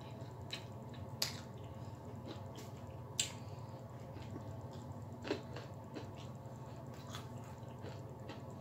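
A person eating fried chicken wings: chewing and mouth smacks, with a few sharp clicks, the loudest about a second, three seconds and five seconds in, over a steady low hum.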